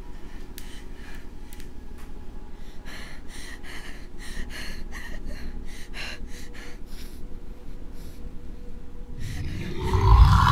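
Quick, shaky breaths and gasps of a frightened person, about three or four a second, over a low steady drone. Near the end a loud, low creature roar swells in for a jump scare.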